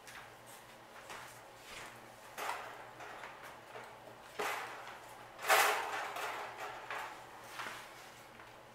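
Rat moving in shredded paper bedding in a wire cage: a series of short rustles and scratches, the loudest about five and a half seconds in.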